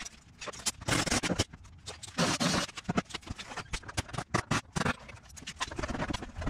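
Rusted sheet-metal rocker panel being scraped and worked loose by hand: irregular scraping and scratching of metal, broken by short knocks.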